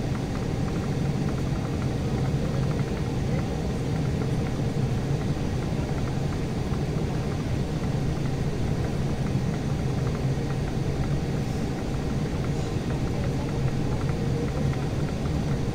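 Steady low rumble with a constant low hum from an Embraer E175 airliner on the ground after landing.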